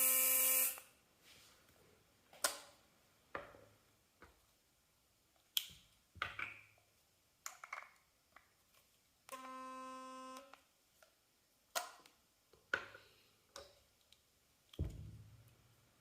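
Philips sonic electric toothbrush with an HX6063 diamond replacement brush head buzzing in two short bursts, a loud one at the start and a quieter one about nine seconds in, with a steady pitched hum full of overtones; the odd buzz is the noise of a broken brush head. Sharp clicks and taps come between the bursts.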